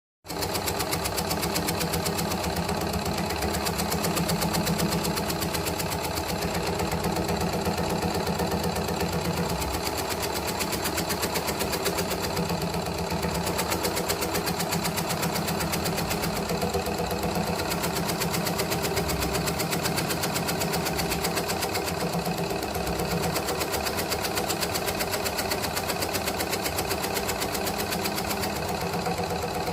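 Motorised tobacco-shredding machine running steadily with a fast, even mechanical rhythm.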